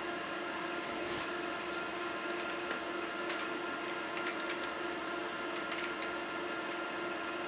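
Supermicro 2026T-6RFT+ rack server running after boot-up, its cooling fans giving a steady whir with several held tones. Faint scattered clicks come through in the middle stretch.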